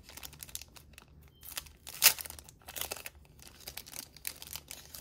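Crinkly plastic pen packaging being torn open and handled: irregular crackling and rustling, with one sharp, loud crack about two seconds in.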